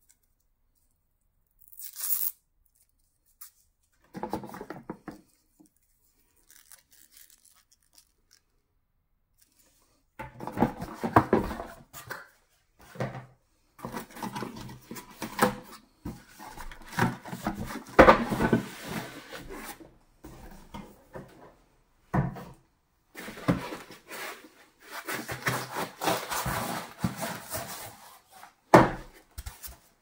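Cardboard packaging being handled: a short rip about two seconds in, then, after a quiet spell, a boxed docking station is slid out of its cardboard sleeve with a run of rustling, rubbing and scraping of card and plastic wrap, broken by a few sharp knocks.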